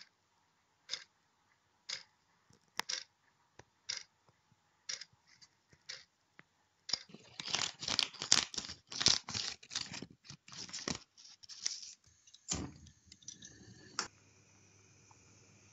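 Clock ticking about once a second, followed by a few seconds of rapid clicking and clattering, a single thump, and a faint steady hum near the end.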